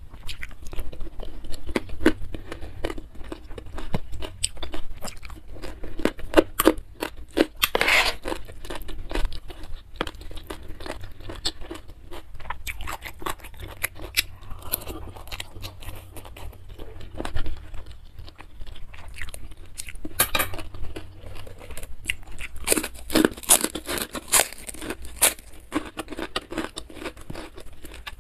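Close-miked eating sounds: wet chewing of seafood kwetiau noodles broken by crisp crunching bites, with thick runs of crunching about seven seconds in and again near the end.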